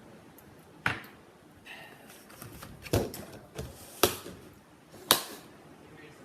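Four sharp knocks about a second apart, with lighter clicks and clatters between: hard objects being handled and set down.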